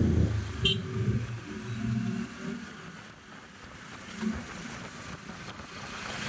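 Traffic noise heard from a moving motorcycle: steady low engine, road and wind noise, louder in the first second and a half and then lower. There is one short, sharp high click under a second in.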